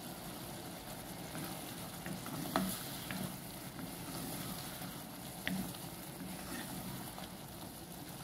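Shrimp sauce cooking in a pot with a steady sizzling hiss while a wooden spoon stirs in sprinkled wheat flour to thicken it. The spoon knocks lightly against the pot a few times, around a third of the way in and again past the middle.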